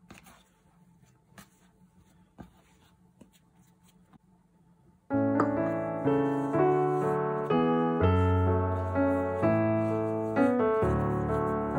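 A few faint clicks and taps, then piano music starts abruptly about five seconds in and plays on as a melody of single notes over low chords, much louder than the clicks.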